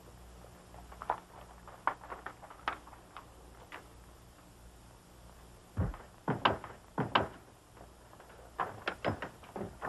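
Footsteps and a wooden door: a run of sharp, irregularly spaced knocks and thumps, the loudest cluster a little past the middle and a few more near the end, over a faint steady hum.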